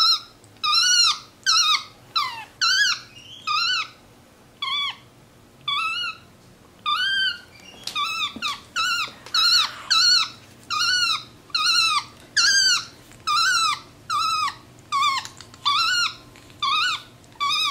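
Tufted capuchin monkey giving a long run of short, high, squeaky calls, about one to two a second. Each call rises and then drops in pitch.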